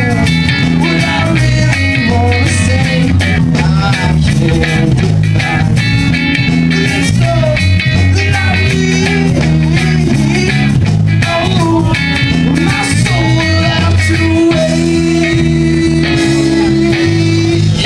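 A live rock band playing: electric guitar over a bass guitar line, with a long held note near the end.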